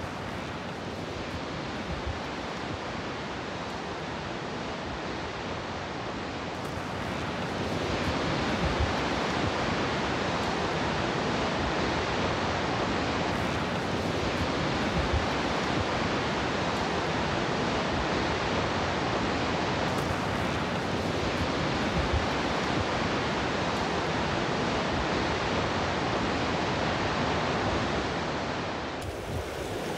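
Mountain stream rushing and cascading over rocks, a steady loud wash of water that grows louder about eight seconds in.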